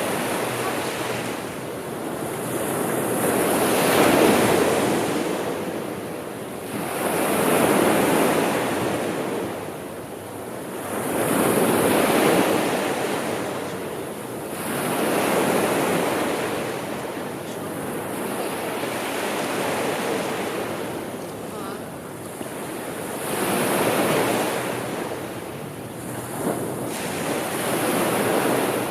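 Sea waves washing in slow surges, each swelling and falling away over a few seconds, about every four seconds.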